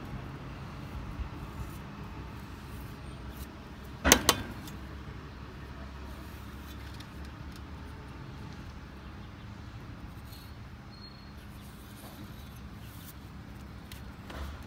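Steady low background rumble, with two sharp clicks close together about four seconds in from hand tools being handled during stone patching work.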